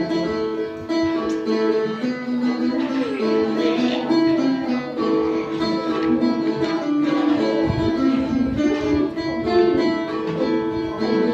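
Phin, the Thai Isan plucked lute, playing a continuous melody of plucked notes.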